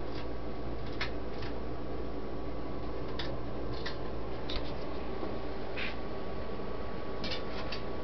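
Eagle Fan Co. 'Grand Duchess' ceiling fan switched on and coming up to speed: a steady motor hum with a faint steady whine, and scattered light clicks as its four folding metal blades swing open.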